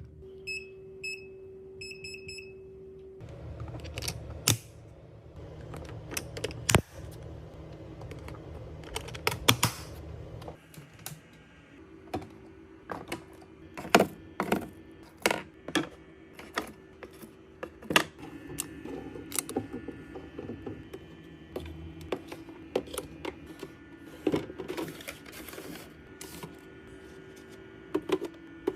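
Clicks, taps and knocks of bottles, cans and plastic containers being handled and set in place while restocking a mini fridge, over a steady low hum. A few short electronic beeps sound in the first two seconds.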